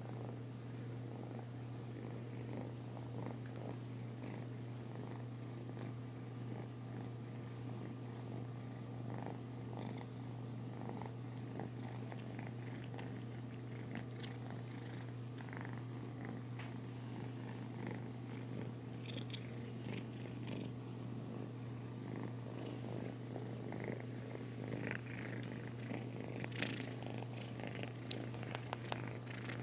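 Domestic cat purring steadily and continuously while being stroked, a low even purr. Near the end a few soft crackles of fur brushing close to the microphone.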